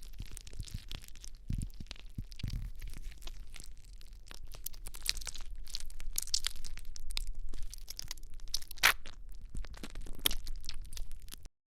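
Close-up slime-making handling sounds: a dense run of small sticky crackles, clicks and crunchy tearing noises as the materials are squeezed and worked by hand, with a sharper snap near the end and an abrupt stop.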